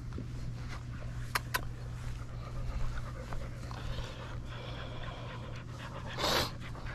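Dogs panting close by while being petted, with two light clicks about a second and a half in and a short, louder huff of breath near the end.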